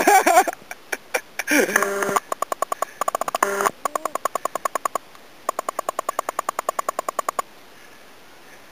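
Rapid, even electronic pulsing, about six short pitched beeps a second, in runs that stop about seven seconds in. A brief voice sounds near the start and again about two seconds in.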